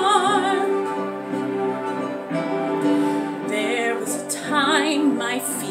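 Orchestral backing track accompanying a woman's singing. Her held note with vibrato ends just after the start, the accompaniment carries on alone, and her voice comes back in over it after about three and a half seconds.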